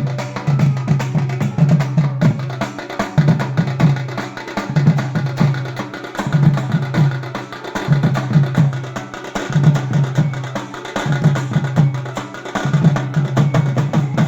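Indian bawal band playing a drum-heavy instrumental. Deep pitched drum strokes repeat in phrases about every second and a half, under fast, dense clicking percussion.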